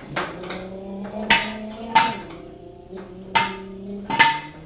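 A series of sharp metal clanks from a homemade steel-tube go-kart as its controls are worked by someone seated in it, each clank leaving a ringing metallic hum.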